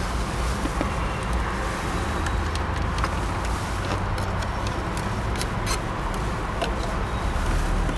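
Steady low vehicle rumble heard from inside a car cabin. Between about three and seven seconds in come a few faint clicks, as a plastic pry tool is worked along the dashboard trim.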